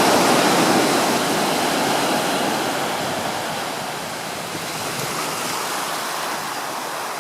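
Ocean surf: a wave's rush of water, loudest at first and slowly fading away.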